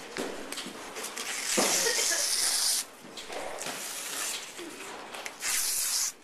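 A group of people shushing together in hissing bursts, a long one about one and a half seconds in and a shorter one near the end, with fainter rustling between.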